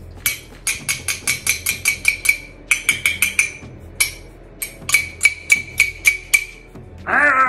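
A knife striking the glass neck of a wine bottle again and again, an attempt to knock the neck off as when sabering champagne: quick runs of sharp clinks, about four or five a second, each ringing briefly at the same high pitch, with short pauses between runs. A short wavering vocal sound comes near the end.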